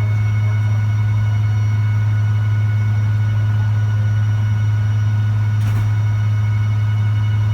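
Caterpillar diesel engine running at a steady speed on a Taylor engine dynamometer: a loud, constant drone with no change in pitch.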